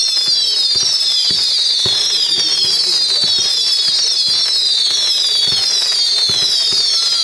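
Firework compound cake firing a rapid run of whistling shots: many overlapping whistles, each falling in pitch, several starting every second, with sharp cracks and bangs scattered among them.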